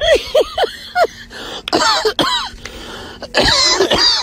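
Hearty laughter in quick, high-pitched bursts, several to a second, coming in three bouts with short breaks.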